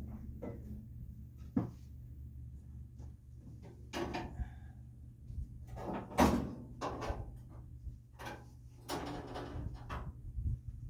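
Irregular clunks, knocks and short scrapes of things being handled, over a low steady hum; the loudest knock comes about six seconds in.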